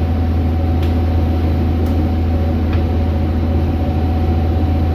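Fishing boat's engine running steadily: an even, low drone with a constant hum that does not change.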